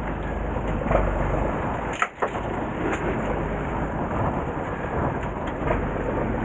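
Steady rumble of wind on the microphone and a fishing boat's engine, with a few faint knocks of handling on deck and a brief dropout about two seconds in.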